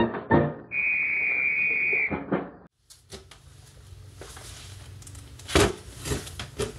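A short steady high whistle-like tone, an edited sound effect, then garage room tone with a low hum and a few sharp metal clatters and knocks as a tall metal jack stand is handled.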